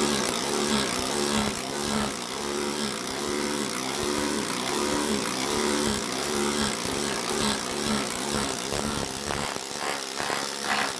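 Needle scaler running continuously, its bundle of steel rods hammering rapidly on a Mercedes steel floor pan to chip off old underseal, with a steady pitched hum under the clatter.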